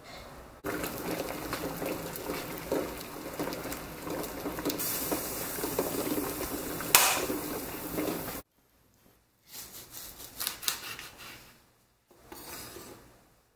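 Water at a rolling boil in a small pan with two eggs in it: dense bubbling and crackling, with one sharp knock about seven seconds in, cutting off suddenly after about eight seconds. Then quieter scattered taps and clicks from a knife and hands cutting spring onion on a wooden chopping board.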